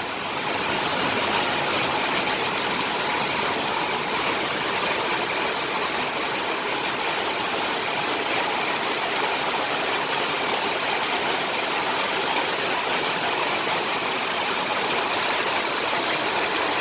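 Heavy rain falling, a steady even hiss of downpour.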